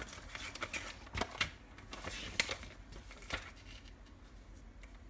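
Handling noise: a quick run of small clicks, taps and rustles, which dies away after about three and a half seconds.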